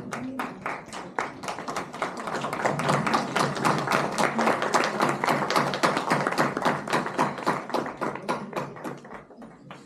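Audience applauding, a dense patter of many hands clapping that swells over the first few seconds and dies away near the end.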